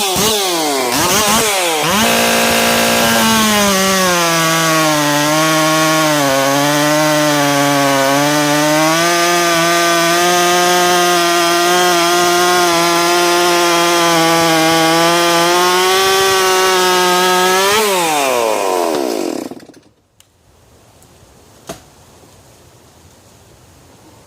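Milled and ported Stihl chainsaw at full throttle cutting through a large pine log, its engine note pulled down under the load of the cut for several seconds, then running high and steady. Near the end the throttle drops and the engine winds down and stops.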